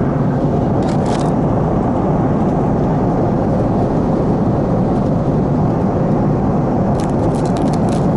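Airliner cabin noise in flight: a deep, steady drone of engines and rushing air. A few light clicks come about a second in and again near the end.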